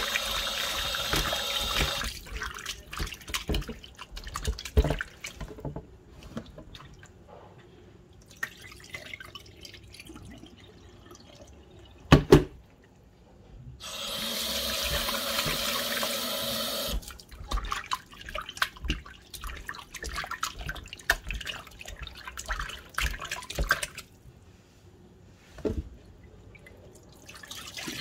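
Kitchen tap running into a bowl of raw chicken pieces in a stainless steel sink, with irregular wet splashing as hands rub and turn the chicken; the stream is steadiest in the first two seconds and again for a few seconds past the middle. A single sharp knock about twelve seconds in.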